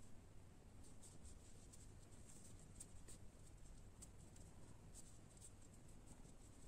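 Faint, irregular scratchy clicks of a crochet hook catching yarn and pulling it through stitches while working single crochet in rounds, over a faint low hum.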